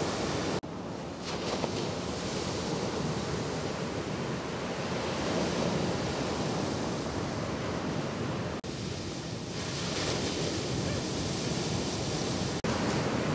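Ocean waves breaking and washing in as shorebreak: a steady rush of surf. The sound drops out briefly three times where the footage cuts.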